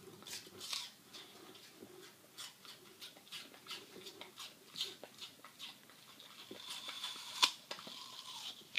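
Labradoodle chewing apple: a run of irregular short crunches and clicks from its jaws, the loudest about seven and a half seconds in.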